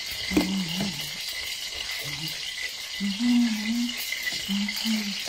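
Hot oil sizzling steadily while akara batter is beaten in a bowl. Over it, a voice makes several short, low, level notes, like humming.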